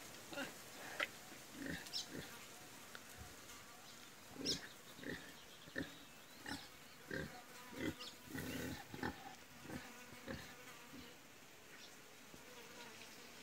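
Heavily pregnant sow grunting softly in short, irregular bursts as she roots in the dirt with her snout. The grunts die away near the end.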